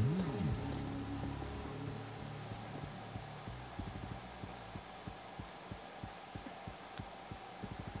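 Crickets chirping in a steady, high-pitched trill, while the tail of a music track dies away in the first couple of seconds.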